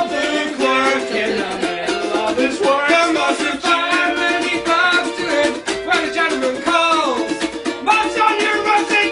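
Ukulele strumming under a melodica carrying the melody in an instrumental break, with held notes and a falling slide about seven seconds in.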